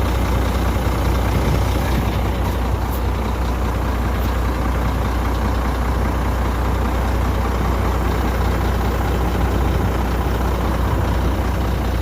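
Truck's diesel engine idling steadily, a constant low rumble.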